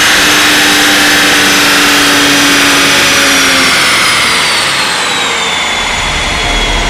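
Hyundai Genesis G70 3.3 Turbo on a chassis dyno coasting down after a full-throttle pull: the engine noise drops away right at the start, and the spinning wheel and rollers wind down with a high whine that slowly falls in pitch.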